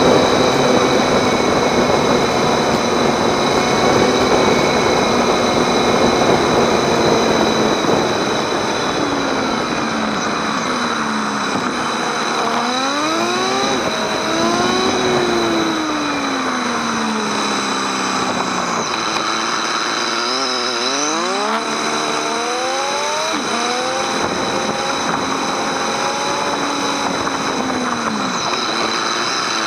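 Motorcycle engine running at road speed under steady wind and road noise. From about halfway through, the engine note falls and rises again several times as the bike slows and changes down through the gears.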